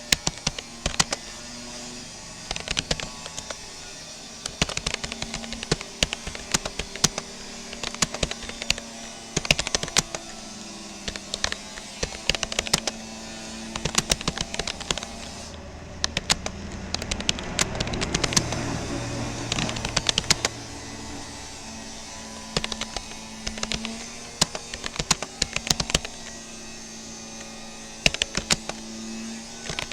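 Fast typing on a Rapoo computer keyboard: bursts of key clicks with short pauses between words, over a steady low hum that swells for a few seconds around the middle.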